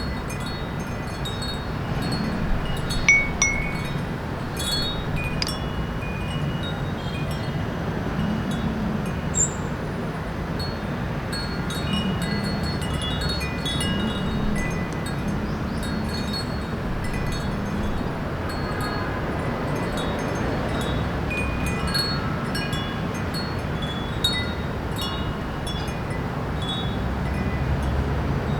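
Small wind chime ringing irregularly in a breeze, light high tinkling notes over the steady low hum of city traffic and wind.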